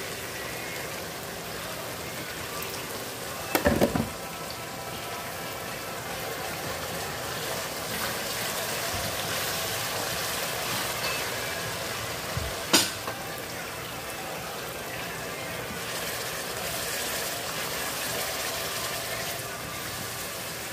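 Buffalo wing sauce sizzling and bubbling steadily in a stainless steel wok as it is stirred with a spatula. There are sharp knocks of the spatula against the pan about four seconds in and again near thirteen seconds.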